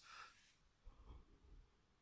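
Near silence: a faint breathy hiss at the start, then soft low bumps about a second in.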